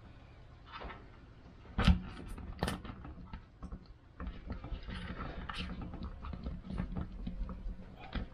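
Handling noise of a plastic rooftop antenna housing being set down and pressed onto an RV roof: a sharp knock about two seconds in, another shortly after, then lighter clicks and rustling.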